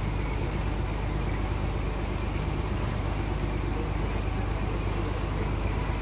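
Steady low rumble and rush of a vessel under way at sea: engine drone with water washing past the hull.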